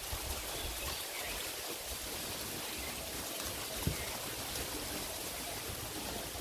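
Water trickling and dripping off a wet cast net as it is hauled up out of a pond, with a single light knock about four seconds in.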